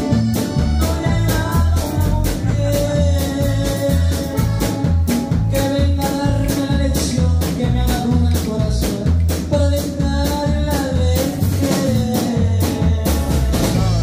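A live band playing a song: a young man's singing voice over drum kit, electric bass and electric guitar, with a steady beat.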